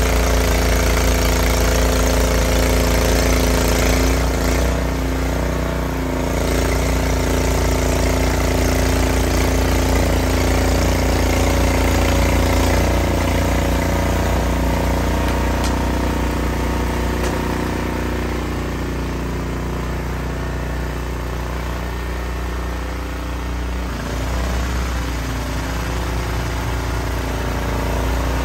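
Ariens RapidTrack Platinum 28-inch SHO two-stage snowblower running at a steady throttle while clearing deep snow. Its engine note dips slightly about five seconds in and again for a stretch in the second half.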